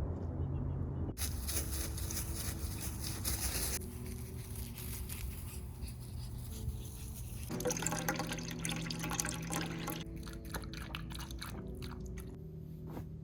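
Household liquid sounds, water running or being poured, in short stretches with small clicks and knocks of handling.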